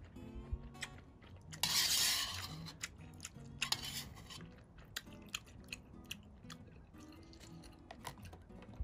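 A person eating ramen noodles: chewing with small crunches and clicks, with a loud slurp of noodles about two seconds in and a shorter one near four seconds.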